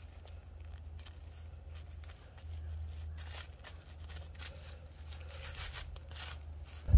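Faint, scattered rustling and crunching of hands working soil and plants through plastic landscape fabric while setting strawberry plants, over a steady low rumble.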